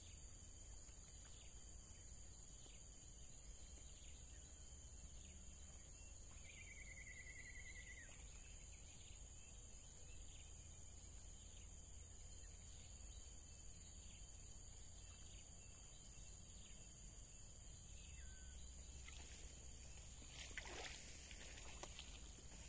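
Faint pond-side ambience of insects: a steady high drone with small regular ticking chirps a little over once a second. A short rapid trill comes about seven seconds in, and a falling call near the end.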